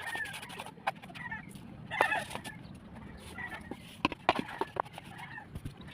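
Birds calling in short, scattered clucks and chirps, with a few sharp taps in between.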